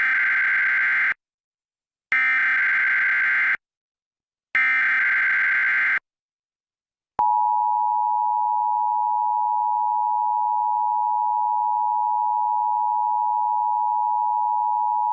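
Emergency Alert System test: three short bursts of SAME digital header data, each about a second long with gaps between, then about seven seconds in the steady two-tone EAS attention signal, held for about eight seconds.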